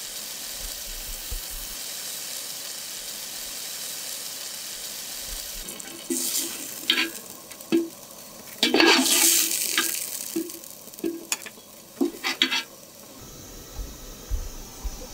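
Wild mushrooms sizzling in oil in a wide metal pan. From about six seconds in, a spoon scrapes and clinks against the pan and a plate as the mushrooms are served out, with a series of sharp knocks.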